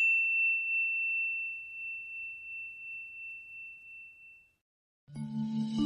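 A single high bell-like ding rings out and fades slowly with a slight waver, dying away after about four seconds. About five seconds in, music begins with a low steady drone.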